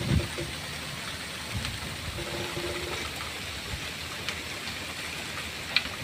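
Strong wind blowing through foliage, a steady hiss with occasional low buffeting on the microphone. A faint short tone sounds briefly about two seconds in.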